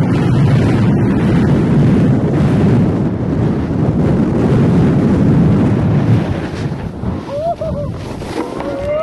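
Wind rushing over the camera microphone while snowboarding downhill, a dense, steady rush of noise. A short wavering tone is heard about seven seconds in.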